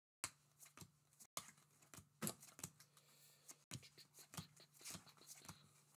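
Faint, irregular flicks and clicks of Topps baseball cards being slid one by one off a stack in the hands.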